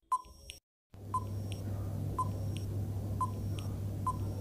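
Countdown-timer sound effect: a short electronic beep followed by a higher tick about a third of a second later, repeating once a second, four times, over a steady low hum. It opens with a brief sharp blip just after the start.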